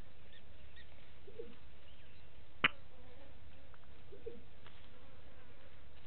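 Steady faint outdoor background hiss at a waterhole, with a short falling call heard twice, about three seconds apart, and a single sharp click midway.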